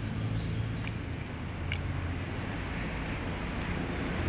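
Steady low rumbling background noise with a few faint ticks; no meowing.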